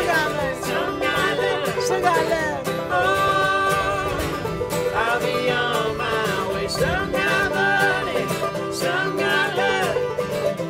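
Background music: a country-style song with plucked strings.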